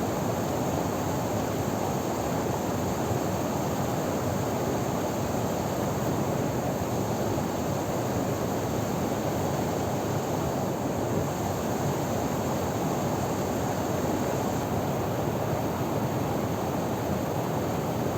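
Steady rush of a river stream and small waterfall: an even wash of flowing water with no breaks.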